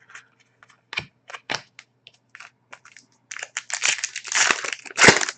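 Trading-card pack wrapper crinkling and crackling as it is handled and opened, after a few light clicks and taps of cards. The crinkling grows dense over the last two seconds, with the loudest crackle near the end.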